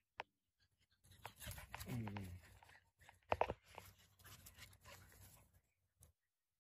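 Faint rustling and crunching of movement in grass, with a short low sound gliding down in pitch about two seconds in and a sharp click a little after three seconds.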